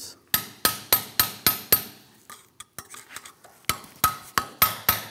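A steel pry tool tapping and clicking against the vane levers and unison ring of a seized variable-geometry turbocharger: a run of sharp, ringing metallic ticks about four a second, a pause of about two seconds, then the ticks start again. The carbon-fouled vane mechanism is stuck tight where it should move freely.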